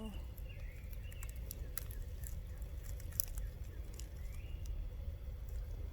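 Footsteps on the forest floor, a scatter of soft crunches and clicks, with a few faint short bird chirps and a steady low rumble on the microphone.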